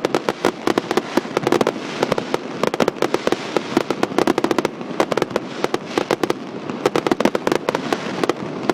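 Fireworks going off in quick succession: a dense, continuous string of sharp bangs and crackling pops, several a second.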